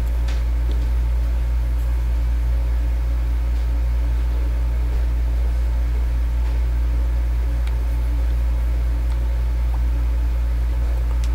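Steady low hum with an even hiss over it, unchanging throughout, with a few faint ticks.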